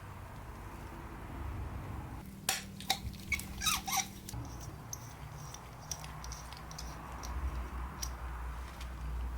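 Workshop handling noise: a quick cluster of sharp clicks and short squeaks about two to four seconds in, then a few fainter clicks, over a low steady hum.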